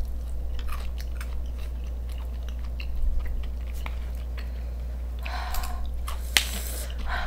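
A person chewing crunchy food close to the microphone: a scatter of small crisp crunches and mouth clicks, with two brief louder noisy bursts near the end.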